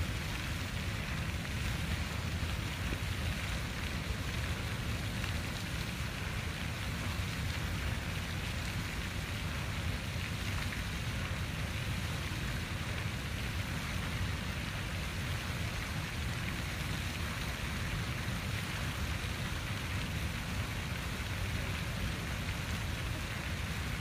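Water fountain running: falling water splashing steadily into its basin.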